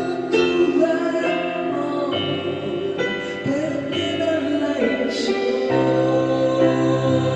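Instrumental passage of a romantic ballad: held chords with a melody line over them, and a deep bass coming in near the end.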